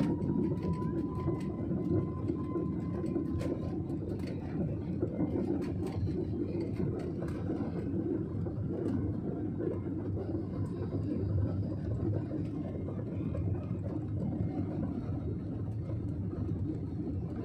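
Steady cabin rumble of an Airbus A320-family jet taxiing at low engine power, heard inside the cabin beside the wing. A faint steady whine sounds over it for the first few seconds, and there are a few light clicks.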